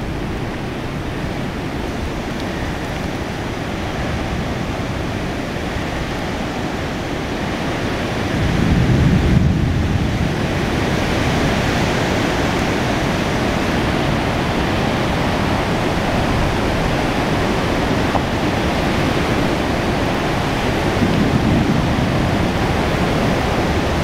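Thunderstorm rain and wind, a loud steady rush, with deeper rumbling swells about eight seconds in and again near the end.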